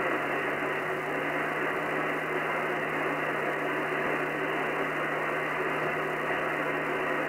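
Shortwave receiver's steady static hiss on the 27 MHz CB band in sideband mode while being tuned up the band, with no station coming through. The hiss stops sharply above about 3 kHz at the sideband filter, with a steady low hum underneath.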